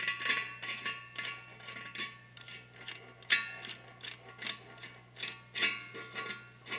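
Irregular metallic clinks and light rattles, about two a second, as a steel nut is spun by hand down a threaded stud onto a milling-machine strap clamp. The sharpest clink comes a little past three seconds in, over a steady low hum.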